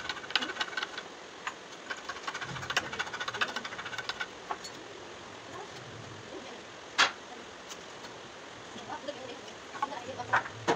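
Pine timber being handled on a concrete floor: a run of small wooden clicks and taps, then one sharp knock of wood on wood about seven seconds in, and a few more taps near the end.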